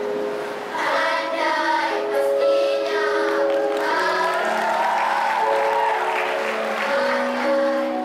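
Children's school choir singing over steady held notes underneath.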